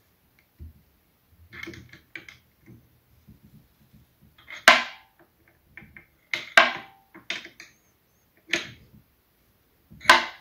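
Small open-end wrench clicking and clinking against a wheel nut on the Artillery X1 printer's hotend carriage as it is tightened to take the wobble out of the hotend. The sound is a series of irregular sharp metallic clicks, a second or so apart and louder in the second half, a few of them ringing briefly.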